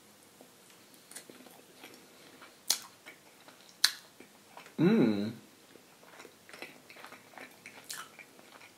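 A person chewing a bite of soft glazed donut close to the microphone, with a few sharp wet mouth clicks. A short hummed voice sound comes about five seconds in.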